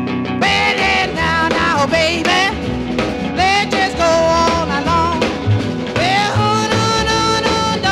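Background music: an uptempo rock and roll song with a sung vocal over a drum beat.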